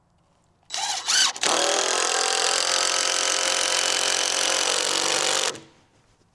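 Power drill driving a screw into framing lumber: two short starts as the motor winds up, then a steady run of about four seconds that stops.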